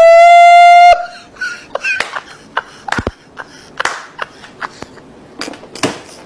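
A handheld air horn blasts one loud, steady note for about a second, then cuts off. Scattered short knocks and brief voices follow.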